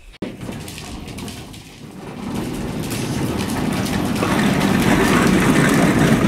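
Plastic wheels of a Little Tikes Cozy Coupe ride-on toy car rolling over a concrete floor as it is pushed. The rumble builds from about two seconds in and keeps getting louder.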